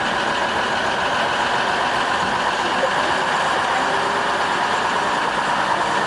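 The Gulflander rail motor's diesel engine running steadily, heard from inside the driver's cab.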